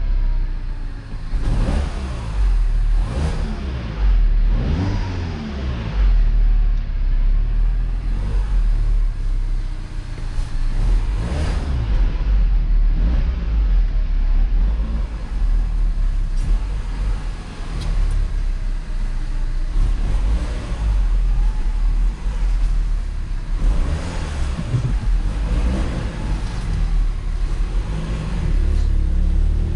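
MINI Cooper engine running, heard from inside the cabin, its revs rising and falling, with a few short knocks.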